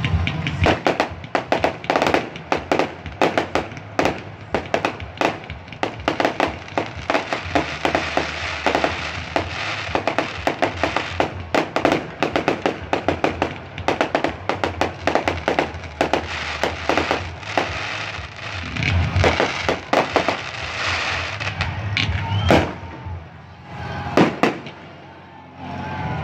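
Fireworks display: rapid, dense crackling and popping of bursting shells, many reports a second. Near the end it thins to a few separate, louder bangs.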